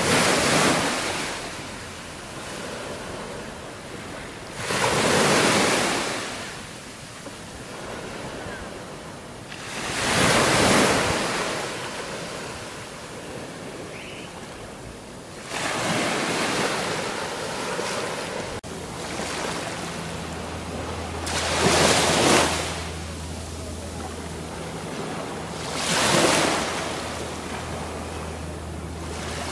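Small waves breaking on a sand-and-pebble beach, one surge of surf about every five seconds with a softer wash between them. A low steady hum joins in about twenty seconds in.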